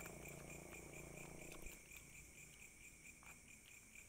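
Faint, steady chorus of night insects such as crickets, with a faint low hum that fades out after about a second and a half.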